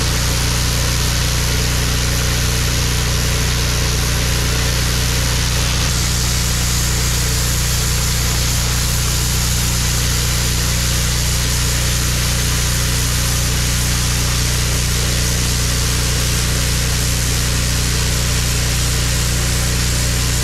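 Hustler 4200 psi gas pressure washer running steadily, its engine hum under the loud continuous hiss of the high-pressure spray blasting dirt off a concrete driveway.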